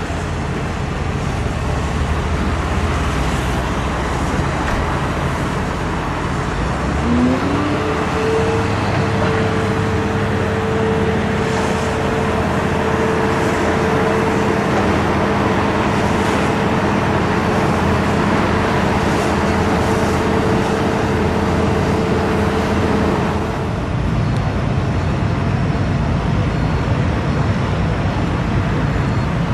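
A heavy engine on demolition machinery, against steady rumbling noise. About seven seconds in it revs up and then holds a steady high pitch; it drops back near the end.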